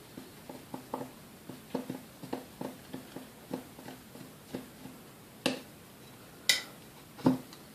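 Screwdriver backing screws out of the bottom of a KitchenAid A9 coffee mill's metal base: a run of small light clicks, about three a second, then three louder, sharper metal clacks over the last few seconds.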